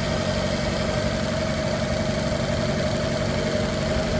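Maruti Suzuki Dzire's four-cylinder petrol engine idling at a raised cold-start idle, with a steady whine over it. It runs unevenly with the engine shaking: cylinder 2 is misfiring (fault code P0302).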